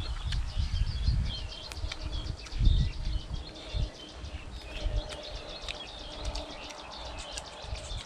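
Small birds chirping rapidly in the background, with short high calls repeating throughout. Low rumbling noise on the microphone comes and goes in the first half, strongest a little under three seconds in.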